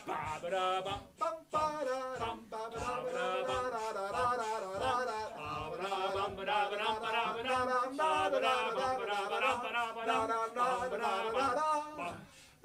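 Two men singing together, a continuous line of wavering sung pitches with few breaks, fading out about a second before the end.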